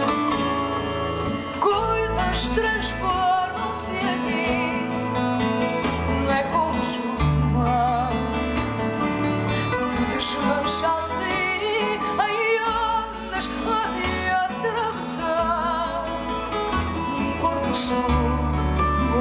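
Live band playing a slow song: Portuguese guitar and other plucked guitars over a bass line, with a woman's voice singing long notes with vibrato.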